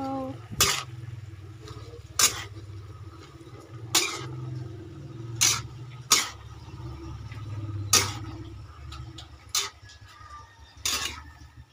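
Metal cooking utensil knocking against the side of a metal wok while stirring greens, a sharp knock every second or two, over a low steady hum.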